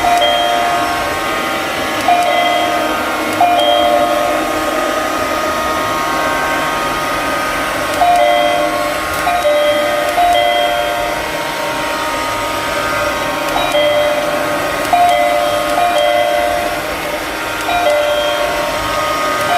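Sapper curling robot vacuum cleaner running: a steady motor whine that jumps to a new pitch every second or two.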